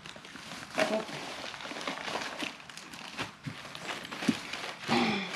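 Paper and plastic packaging rustling and knocking as craft supplies are handled and sorted by hand in a plastic storage tote, with short bits of voice about a second in and near the end.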